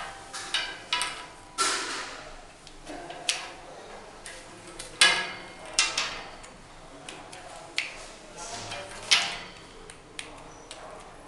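Parts of a chest expander being handled and assembled: irregular clicks, knocks and clatter of the plastic handle, metal hook and resistance tubes. Some knocks ring briefly, and the loudest come about five seconds in and again about nine seconds in.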